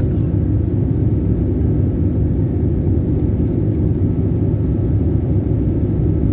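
Airliner cabin noise in flight: the steady, loud, low rumble of the jet engines and the air rushing past the fuselage, with a faint steady hum above it.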